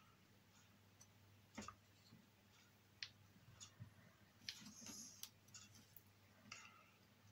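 Near silence, broken by a few faint light clicks and taps as a thin applicator and fingers work at a metal shaft coupling seated in an MDF disc.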